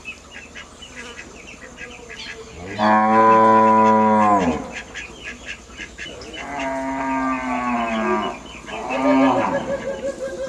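Cow mooing three times: a loud moo of about two seconds, a second long moo about six seconds in, then a shorter one near the end.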